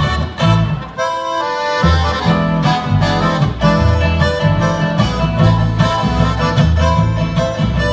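Live band playing a fast dance tune on accordion, acoustic guitar and double bass with drums. Short punched accents at first, then about two seconds in the full band comes in with a steady, pulsing bass line.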